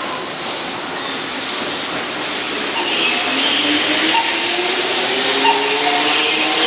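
Keihan 6000-series electric train pulling out of a station. From about three seconds in, its motor whine rises steadily in pitch as it accelerates, over a steady hiss.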